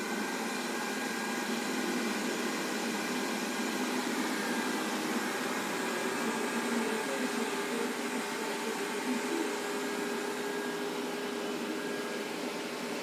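Xiaomi Roborock Sweep One robot vacuum running, a steady motor hum with a faint constant whine.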